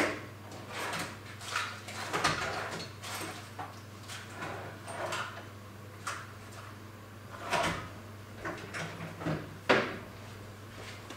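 Irregular clatters, knocks and rustles of tools and metal parts being picked up and set down on a workbench, with a few sharper knocks, the sharpest near the end. A steady low electrical hum runs underneath.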